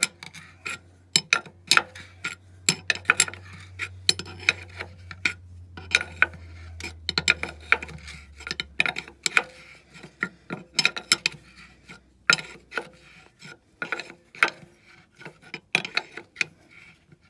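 Open-end wrench turning a threaded air-line elbow fitting into the steel top plate of a truck suspension air bag: irregular metal clicks and taps as the wrench is worked and repositioned on the fitting. A faint low hum underneath stops about three-quarters of the way through.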